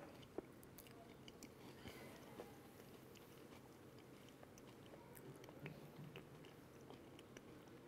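Faint eating sounds: a person chewing a soft coconut-ball dessert with vanilla cream, with scattered small clicks, the sharpest about half a second in.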